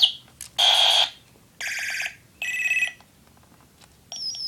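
Electronic sound effects from a battery-operated toy robot. Three half-second bursts of synthetic bleeping and buzzing sound in quick succession, then a short falling tone near the end.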